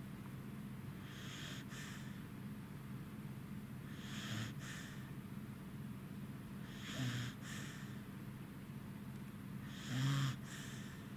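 Pembroke Welsh corgi snoring in its sleep, a raspy breath about every three seconds, four in all, the later ones with a low snort and the last one the loudest.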